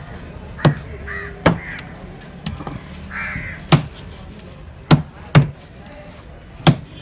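A heavy cleaver chopping through a trevally and striking a wooden chopping block, about seven sharp chops at an irregular pace. Crows caw several times in between.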